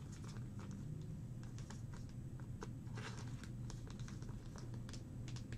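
Light, irregular clicks and taps over a steady low hum.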